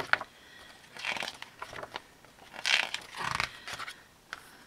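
Paper rustling in a few short bursts as printed pattern sheets are handled and turned over.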